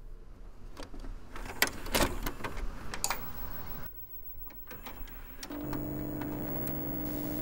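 A VHS cassette pushed into a VCR: a run of clicks and clunks from the loading mechanism over the first few seconds. About five and a half seconds in, a steady electronic hum with hiss sets in.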